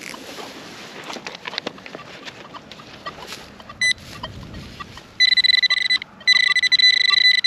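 Scraping and scratching in soil as a target is dug, then about five seconds in a metal-detecting pinpointer gives a loud, steady, high electronic tone. The tone breaks off briefly and resumes, held while the pinpointer is on the buried metal.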